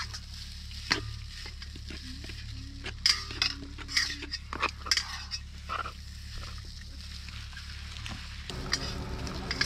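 Spoons scooping and scraping against plates and a cooking pot, with scattered sharp clinks, over a steady low hum.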